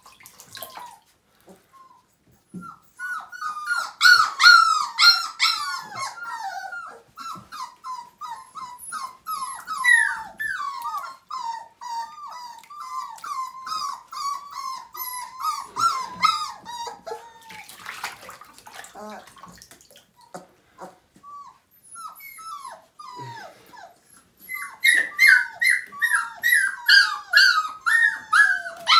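Siberian husky puppies whining and crying in many short, high-pitched cries, distressed at being bathed. The cries come in quick runs, thin out past the middle and pick up again near the end.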